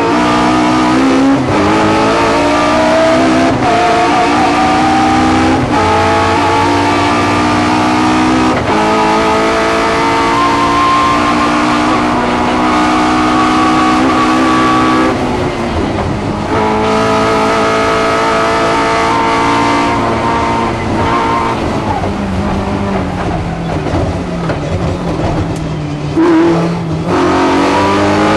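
Race car engine heard from inside the cabin, revving hard and climbing in pitch through the gears, with a short break at each upshift. About halfway through it eases off briefly, then pulls hard again.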